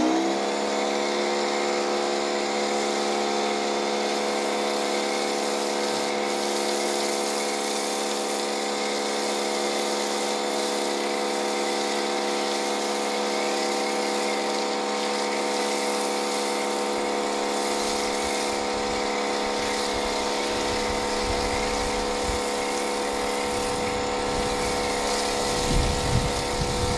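Pressure washer running steadily while it drives a foam cannon: a constant motor-and-pump whine at one pitch, with the hiss of the foam spray over it.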